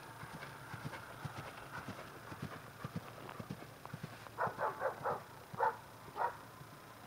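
Hoofbeats of a horse cantering on dry grass turf, a steady run of soft thuds. About four seconds in comes the loudest sound: a quick string of short, sharp calls, followed by two more single calls.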